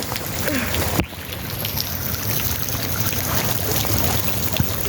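Heavy rain falling, a steady hiss with low wind rumble on the microphone, and a single knock about a second in.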